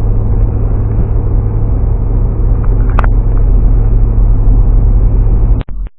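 Car driving, heard from inside the cabin: a steady low rumble of engine and road noise, with one short click about halfway through. It cuts off abruptly near the end.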